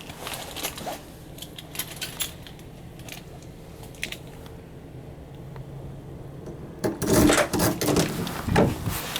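Keys jangling and clicking over a steady low hum, then a much louder stretch of clattering and rustling starting about seven seconds in.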